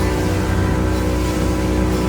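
Background music: a steady, sustained instrumental track with guitar.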